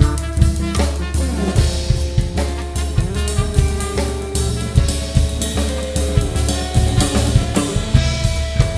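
Drum kit played in a busy groove with frequent kick, snare and cymbal strokes, over band music with a steady bass and held pitched notes.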